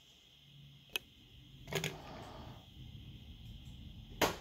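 Three sharp clicks of small electronic parts being handled on a workbench: a light tick about a second in, a click with a brief rustle just under two seconds in, and the loudest knock near the end, as the metal-framed GPS screen assembly is picked up and turned in the hand.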